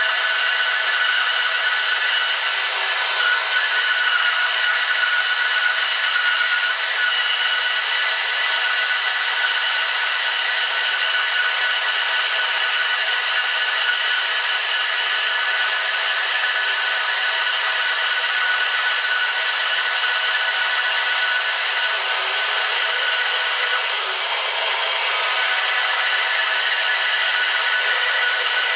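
Mastercraft 9-inch benchtop bandsaw running on its stock blade, slowly ripping a thin slice off a piece of walnut: a steady sawing noise with a constant whine from the machine, dipping briefly about 24 seconds in.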